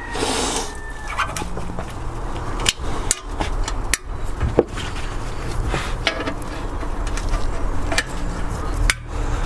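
A background hip-hop beat with a steady bass, over scattered sharp clicks and taps of pliers bending a wire loop at a small engine's throttle.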